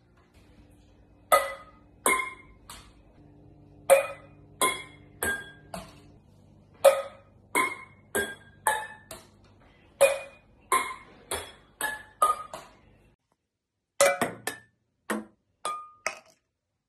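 A plastic ping pong ball bouncing from one metal pot or pan to the next, each hit a sharp metallic ping that rings briefly at that pan's own pitch. The bounces come in runs that speed up as the ball travels down the line of pans, with a short break and a new run near the end.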